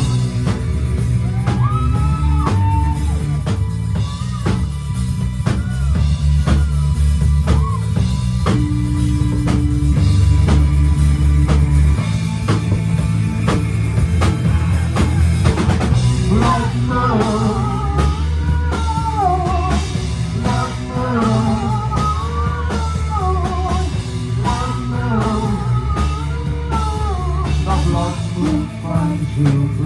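Gothic rock band playing live: heavy bass and a steady drum beat, with a wavering melodic lead line coming in about halfway through.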